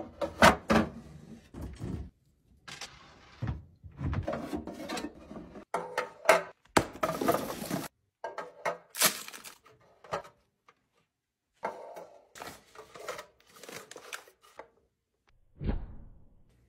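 Clear acrylic storage bins being handled and set in place: a string of plastic clicks, knocks and scrapes in short bursts, with a stretch of rustling around the middle and a dull thump near the end.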